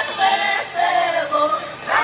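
A choir singing with musical accompaniment, amplified through outdoor concert loudspeakers, with long held notes.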